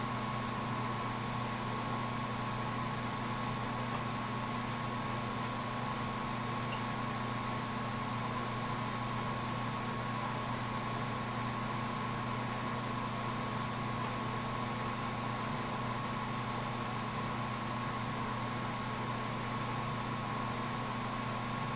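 Steady hiss of a glass lampworking torch flame over a constant low hum and a thin steady tone, with a couple of faint ticks.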